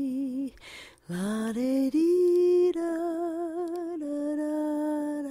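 Background music: a slow, wordless lullaby-like melody sung in long held notes with vibrato. The voice breaks off briefly about half a second in, then slides back up into the tune.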